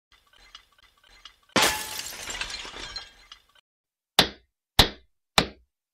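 Intro sound effects: a few faint clinks, then about one and a half seconds in a loud crash of shattering glass that lasts about two seconds, followed by three sharp hammer blows on a nail, evenly spaced about half a second apart.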